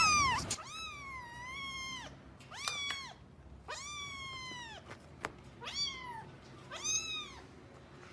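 A domestic cat meowing over and over, about six high-pitched meows roughly a second apart, each rising then falling in pitch; the one about a second in is drawn out longest.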